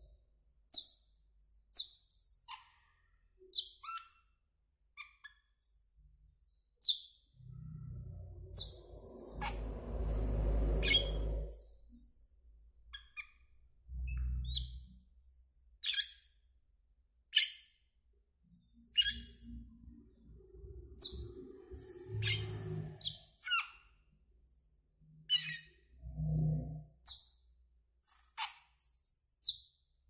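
Asian glossy starling calling: short, sharp, high-pitched notes repeated every second or so. A low rumble sounds in the background at times, longest about a third of the way in.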